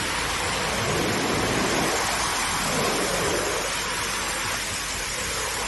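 Steady, even rush of water with no breaks or distinct events.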